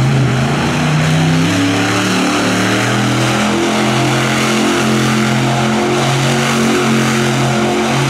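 A loud motor-vehicle engine running hard, its pitch stepping up and down about once a second, over a strong hiss.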